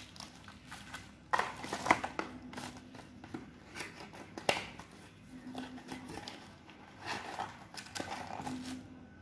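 Packaging being handled by hand: irregular crinkling, rustling and small clicks of plastic wrap and a cardboard box, loudest in a cluster about one and a half to two seconds in and again near halfway.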